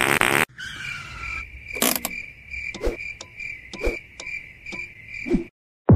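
A short, loud buzzy burst, then crickets chirping: a steady high chirring with scattered clicks that stops abruptly about half a second before the end.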